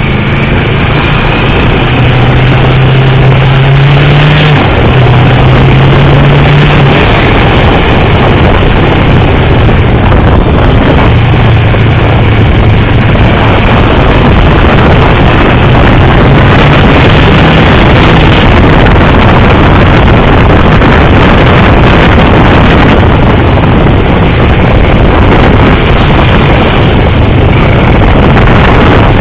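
Motorcycle engine running hard on a track lap, heard onboard with heavy wind rush over the microphone. The engine note climbs, drops back and climbs again as it pulls through the gears, then sits mostly beneath the wind.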